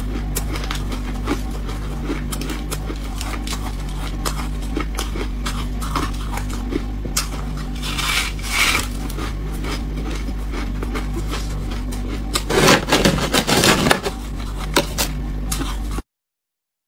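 Refrozen freezer frost being bitten and chewed: a run of crackling crunches, with louder bursts about eight seconds in and again around thirteen seconds, over a steady low hum. The sound cuts off suddenly shortly before the end.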